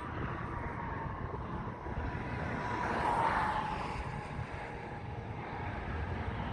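A vehicle passing by over steady outdoor rumble, its noise swelling to a peak about three seconds in and then fading, with a slight drop in pitch as it goes by.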